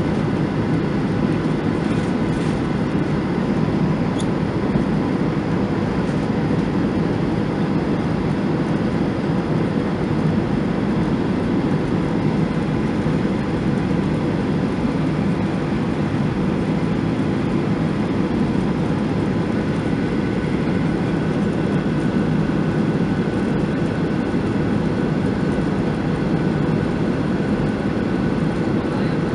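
Steady cabin drone of a Boeing 737-900ER in flight, heard from a window seat beside the wing: the rush of airflow and the CFM56-7B turbofans running evenly, with a few faint steady whining tones above the roar.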